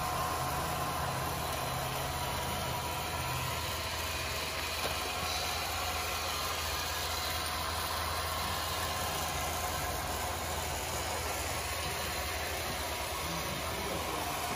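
Steady, engine-like idling hum from RC model machinery, with a lower tone at the start that drops out after about three seconds.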